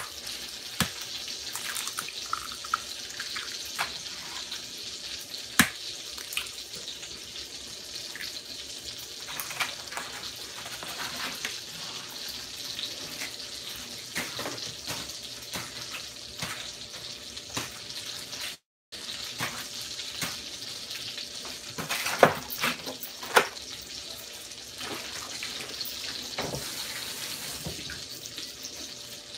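Kitchen tap running steadily into a sink, with scattered small clicks and a few louder knocks about three-quarters of the way through. The sound cuts out for an instant about two-thirds of the way in.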